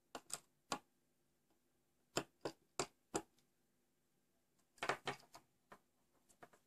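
Light, sharp clicks and taps from a small screwdriver and wires being handled at a dimmer board's screw terminals as the wires are fastened: scattered single clicks, with a quick cluster of them about five seconds in.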